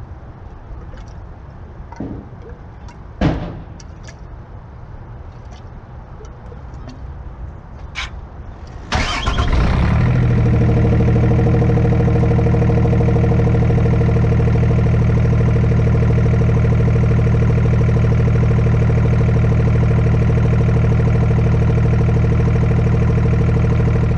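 A few light clicks and one sharp knock about three seconds in. Then, about nine seconds in, the Hino truck's diesel engine starts and settles into a steady idle, loud and even.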